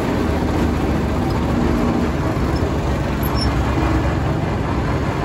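Steady traffic noise of a busy street, a continuous low rumble of passing vehicles.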